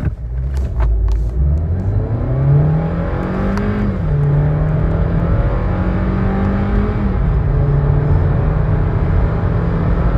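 VW Polo 1.2 TSI turbocharged four-cylinder engine at full throttle, heard from inside the cabin, pulling hard from a standing start. The revs climb, drop sharply at an upshift of the DQ200 seven-speed dual-clutch gearbox about 4 s in, climb again, and drop at a second upshift about 7 s in, then climb slowly.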